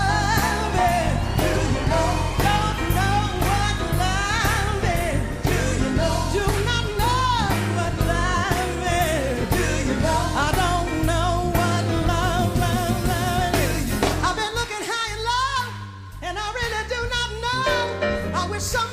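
Female jazz vocalist singing improvised, sliding vocal runs over a live band with a pulsing bass line. The band thins out briefly about fifteen seconds in, then comes back.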